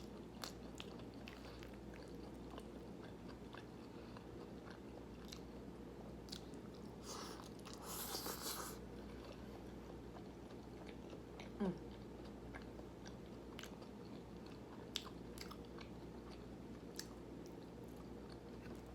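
Close-up chewing of soft food, rice and macaroni salad, with many small wet mouth clicks. There is a brief breathy rush of noise about eight seconds in, and a short falling vocal sound a little past halfway.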